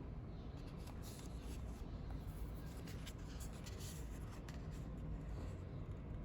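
Irregular scratchy rustling and rubbing of packaging being handled, over a steady low hum.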